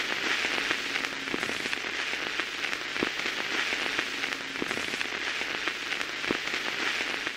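Steady crackling hiss with scattered sharp clicks, like rain or static.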